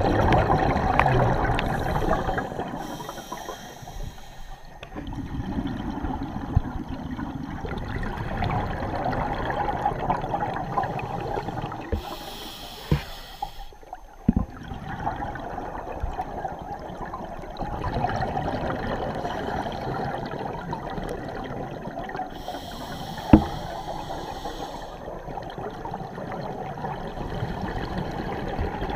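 Scuba regulator breathing heard underwater: exhaled bubbles gurgling and rumbling close by, loudest in the first two seconds, and a hiss about every ten seconds with each breath cycle, over a steady rush of water. A few sharp clicks or knocks, the loudest about two-thirds of the way through.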